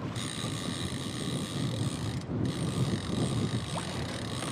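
Fishing reel being cranked in steadily, its gears giving a rapid, even ratcheting whir.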